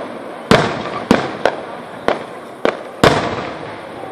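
Aerial firework shells bursting, six sharp bangs at uneven intervals, each trailing off in an echoing rumble. The last bang comes about three seconds in, and its rumble dies away afterwards.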